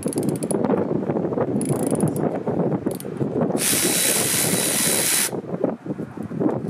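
Milwaukee cordless ratchet running a bolt in two short bursts of rapid clicking near the start and about two seconds in. Then a loud steady hiss for a second and a half, over a low rumble.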